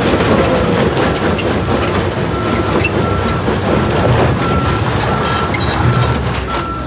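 Heavy machinery running with a loud low engine rumble, a reversing alarm beeping about once every two-thirds of a second, and scattered sharp knocks.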